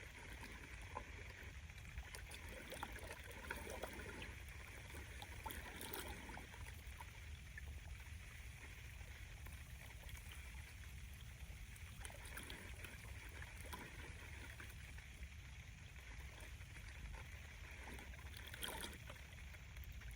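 Small wind-driven waves lapping and trickling at the lake shore, with a steady low rumble of strong wind on the microphone.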